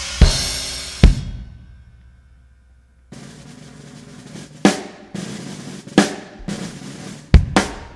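Recorded drum-led music: a drum fill ends in a crash that rings out with one last hit, there is a brief near-silent break, and then the track comes back in with a few single heavy drum hits.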